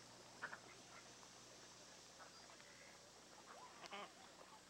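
Near silence: steady faint tape hiss with a few faint, short duck quacks, about half a second in and again near the end.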